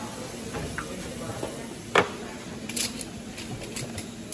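Handling noise at a pedicure foot basin: one sharp knock about two seconds in, followed by a few faint light clicks.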